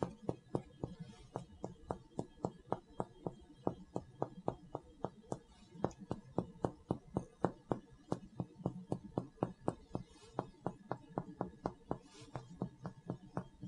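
Chest percussion: a finger striking a finger pressed flat on the front of the chest, making a steady series of short dull taps about four a second as the examiner moves from spot to spot over the lungs.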